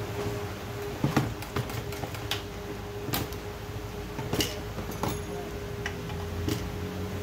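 Scattered metallic clicks and knocks as a petrol chainsaw is handled on a workbench and a screwdriver is worked against its casing, over a steady low hum.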